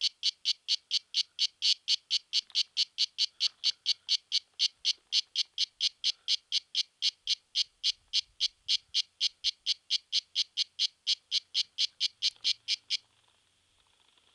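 Cicada singing a steady run of short, high-pitched chirps, about four a second, which stops abruptly about 13 seconds in.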